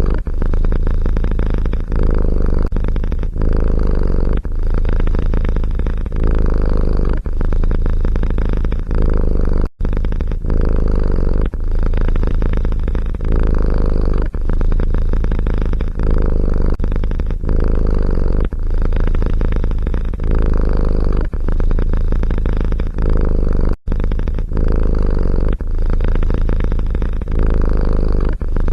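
Domestic cat purring loudly and close up, a continuous low rumble that swells and dips with its breathing about once a second. The sound cuts out abruptly for an instant twice.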